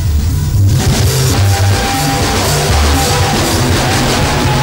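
Upbeat band music: a bass line moving note to note under drum kit and guitar, getting fuller and brighter about a second in.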